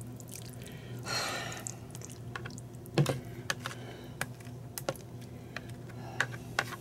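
A metal spoon scraping and tapping against a plastic mixing bowl as thick, wet pot pie filling is scraped out into a casserole dish. It gives a string of irregular clicks and knocks, a short scrape about a second in and a louder knock about three seconds in, over a low steady hum.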